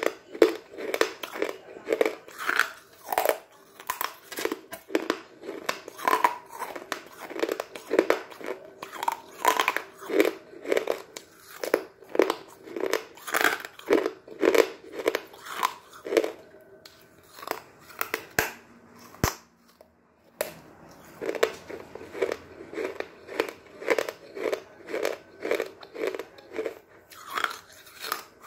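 A person biting and chewing hard pieces of chalk, with crisp crunches about two a second, broken by a pause of a few seconds past the middle before the chewing resumes.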